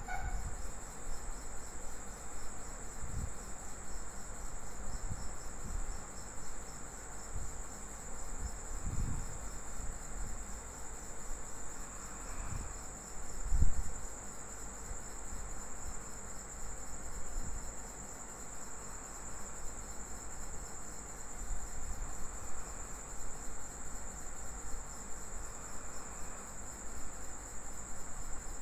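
A cricket trilling steadily in one continuous high-pitched pulsing note, with a low rumble and a few dull thumps, the loudest about halfway through.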